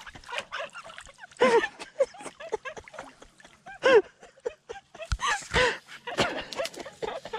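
Water sloshing and splashing as a person wades waist-deep through a reedy channel and pokes a stick into the water, with a run of small splashes and a couple of heavier splashes about five seconds in.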